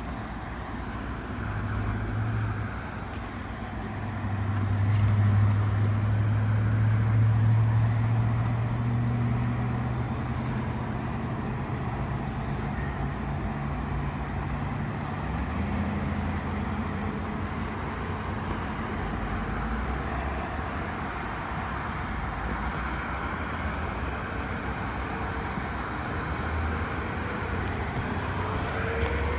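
A vehicle engine droning steadily, swelling louder a few seconds in and then settling to a lower steady rumble.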